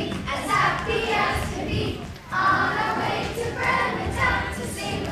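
Children's voices, speaking and singing.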